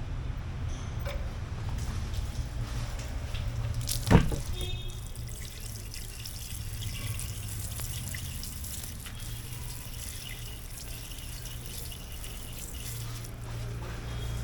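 Water running from a tap as motorcycle brake pads are rinsed clean, with a single sharp knock about four seconds in.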